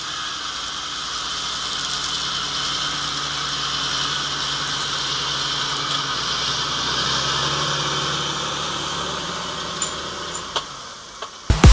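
John Deere 8330 tractor's six-cylinder diesel running steadily under load as it pulls a six-furrow Pottinger Servo 45 Plus reversible plough through the soil. It grows louder as it passes close by, then fades as it pulls away near the end.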